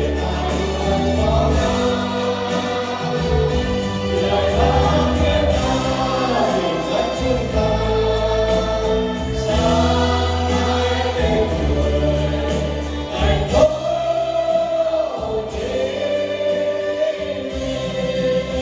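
Mixed choir of men and women singing a Vietnamese song together over an instrumental backing, with steady bass notes under the voices.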